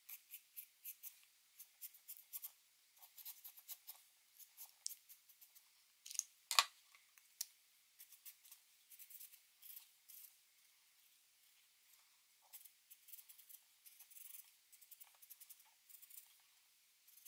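Felt-tip markers scratching across a paper towel in short, faint strokes and dabs, with pauses between. One louder click about six and a half seconds in.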